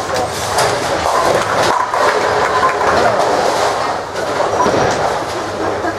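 Tenpin bowling balls rolling down the lanes with a steady rumble, mixed with pins clattering and knocking.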